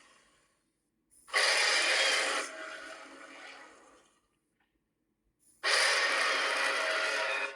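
Varan's roar, the Toho kaiju's movie sound effect, played twice: one starting about a second in and trailing off over a couple of seconds, and a second starting just past halfway and cutting off near the end.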